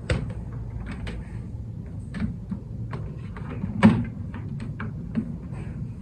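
Irregular clicks and knocks of objects being handled, the loudest about four seconds in, over a steady low hum.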